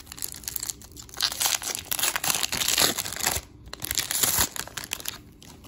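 A foil wrapper of a 1998 Collector's Choice baseball card pack being torn open and crinkled by hand, in irregular crackling bursts from about a second in, with a second burst near the end.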